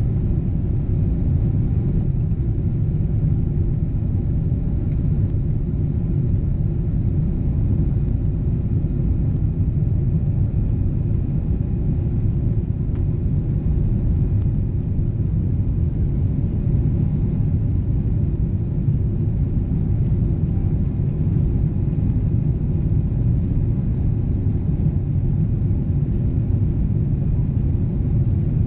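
Boeing 777 jet engines heard from inside the cabin: a steady, deep rumble with faint steady tones above it, neither rising nor falling.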